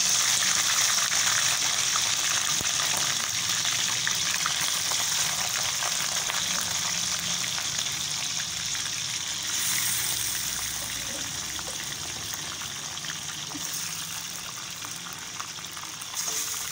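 Mutton pieces sizzling in hot oil in a steel karahi, a steady frying hiss that is loudest at first and slowly dies down.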